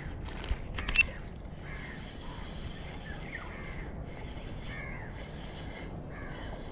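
A crow cawing repeatedly, a short call about every second and a half. There are two sharp clicks about a second in.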